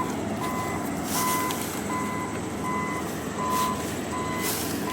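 Vehicle reversing alarm beeping at one steady pitch, about four beeps every three seconds, over a steady low rumble.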